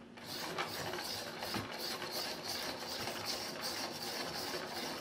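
Westcott iPoint Titanium Bonded hand-crank pencil sharpener being cranked, its titanium-bonded cutter shaving a wooden No. 2 pencil: a steady grinding rasp with an even pulse. It starts just after the beginning and stops near the end.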